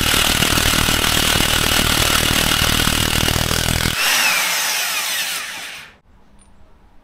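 Impact wrench hammering on the crankshaft bolt of a Ford 4.6L engine's harmonic balancer to break it loose. About four seconds in the hammering gives way to a smoother whir falling in pitch as the bolt spins out, and the tool stops about six seconds in.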